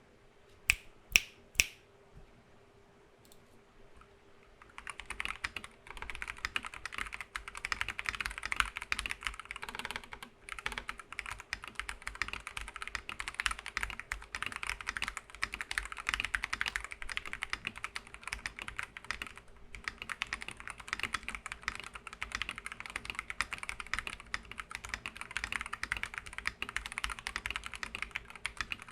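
Typing on a Rakk Lam-Ang Pro mechanical keyboard fitted with stock, unlubed Gateron Pro Yellow Milky linear switches and OEM-profile keycaps. Three loud single key strokes come about a second in, then fast continuous typing from about five seconds in, with brief pauses near ten and twenty seconds.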